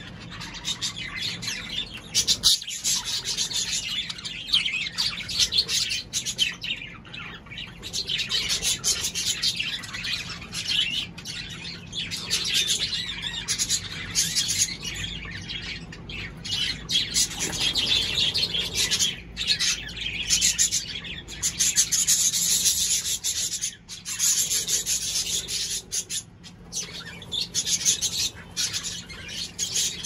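Cockatiels chirping and chattering in a dense, continuous stream of short calls, with a few brief pauses.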